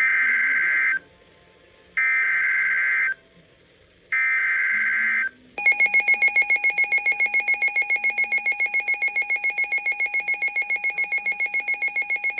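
Three one-second bursts of EAS SAME digital header tones, a harsh warbling data squawk, each about a second apart, which encode the next severe thunderstorm warning. About five and a half seconds in, an electronic alert tone starts beeping rapidly, about six beeps a second, and keeps on to the end.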